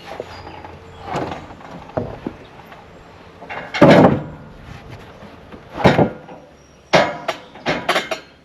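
Irregular wooden knocks and cracks, about eight in all, the loudest about four seconds in, as of timber being struck, dropped or broken.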